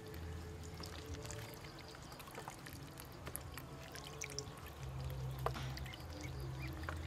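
Water splashing and trickling in a shallow plastic tub as ducklings paddle and dabble, with many small, irregular splashes.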